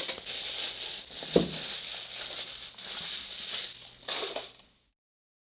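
Packaging rustling and crinkling as the controller is lifted out of a cardboard shipping box, with one knock about a second and a half in. The sound cuts off suddenly near the end into dead silence.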